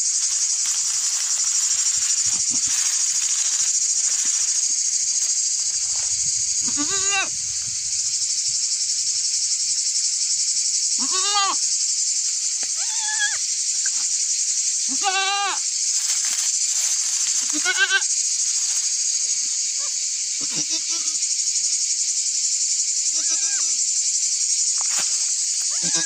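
Goat bleating in short, quavering calls, about seven of them spaced every two to four seconds, over a steady high buzz of insects.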